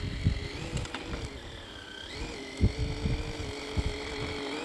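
Distant whine of an electric RC snowmobile's brushless motor and drivetrain (Tekin T8) as it drives over snow, the pitch dipping and rising about two seconds in as the throttle changes. Irregular low thumps on the microphone underneath.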